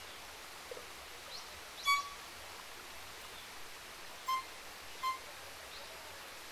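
Violin playing three short high notes at the same pitch, one about two seconds in and a pair close together later, imitating the pygmy wren babbler's call.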